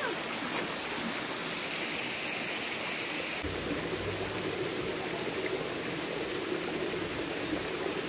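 Steady rush of water in a rocky mountain stream with waterfalls, an even hiss. About three and a half seconds in it turns deeper and fuller.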